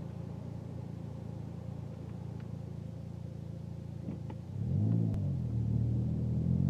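2011 Volkswagen Jetta S 2.0-litre four-cylinder engine through a Magnaflow axle-back exhaust, heard from inside the cabin: idling steadily, then rising in pitch and getting louder as the car accelerates away about four and a half seconds in.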